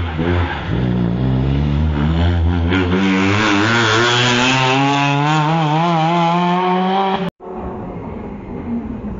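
Rally car engine revving hard through a hairpin, its note rising and wavering as it accelerates away. About seven seconds in the sound cuts off abruptly, and a quieter engine follows.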